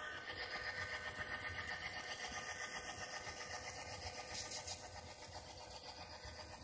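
Bachmann SD9 model diesel locomotive running with its DCC sound decoder playing a diesel engine through the model's small speaker: a steady, evenly pulsing engine chug, mixed with the whir of the model's motor.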